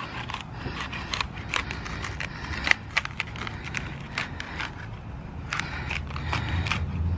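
A kitchen knife slicing crisp celery stalks off the base of the bunch: a string of irregular crisp cracks, the loudest about two and a half seconds in.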